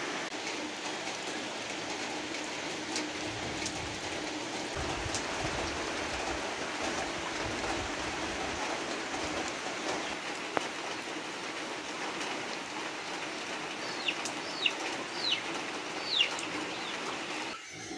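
Heavy rain falling steadily on the trees and foliage. Near the end, a few short falling bird chirps come through it.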